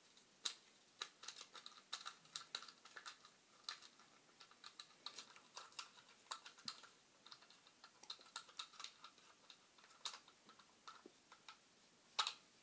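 Faint, irregular light clicks and taps of small hard plastic parts being handled: a cheap rifle scope and its mount being fiddled with in the hands. The sharpest click comes just before the end.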